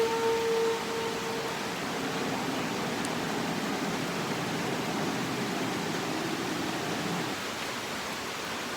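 Steady pouring rain, with the tail of a long shofar note dying away in the first second.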